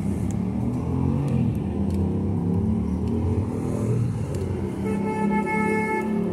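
Car engine running close by, with a car horn sounding once for about a second and a half near the end.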